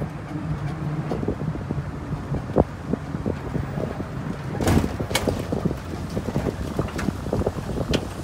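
Riding inside a small open-sided passenger vehicle: its motor running with a low hum, wind buffeting the microphone, and the body rattling and knocking over the track, with a louder gust-like burst about halfway through.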